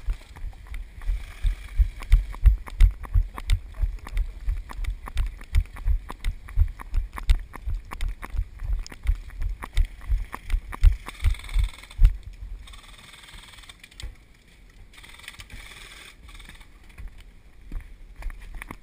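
Running footsteps of the person wearing the camera, heard as deep thuds about three a second along with sharp clicks and rattles. The thudding stops about twelve seconds in, leaving quieter shuffling and a faint hiss.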